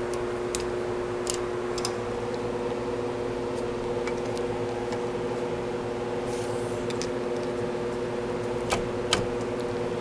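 Steady hum of a large shop fan running, with a few faint metal clicks of hand tools working the throttle linkage on a golf cart carburetor.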